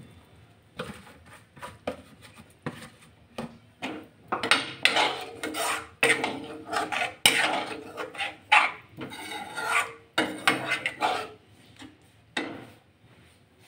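Steel ladle stirring and scraping around a metal kadhai of thin, watery tomato-onion gravy, in a run of irregular rasping strokes that are quiet at first and come thickest in the middle stretch.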